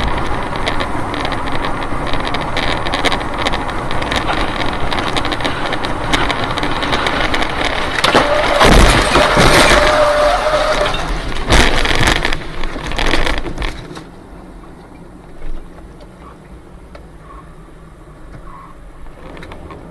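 Engine and rushing noise of a four-seat light aircraft flying low with a sputtering engine, with sharp knocks, loudest in the middle. The sound drops much quieter about 14 seconds in.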